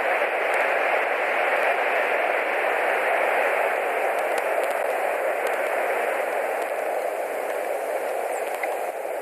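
Steady, even rushing hiss picked up by the nest camera's microphone, with a few faint ticks about halfway through and near the end.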